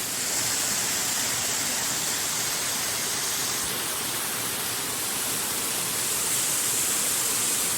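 Small waterfall splashing onto rock and spreading down a rock slope: a steady rushing hiss of falling water.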